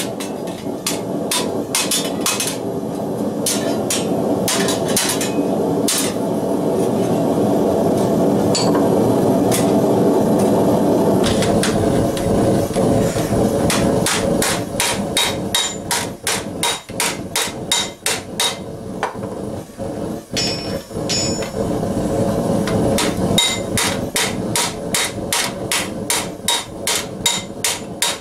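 Escutcheon-style hand hammer striking hot steel plate over the horn of an anvil stake, hot-forming a gauntlet. The blows are spaced out at first over a steady rushing noise, then come in a fast, even run of about two to three a second for the second half.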